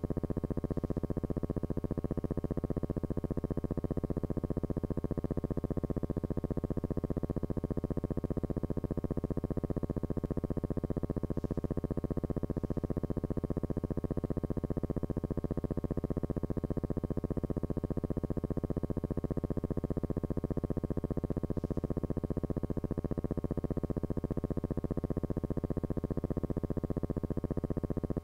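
A steady electrical buzz with a fast, even pulse over a low hum, unchanging: transfer noise on the track of a silent film, not a sound of the filmed scene.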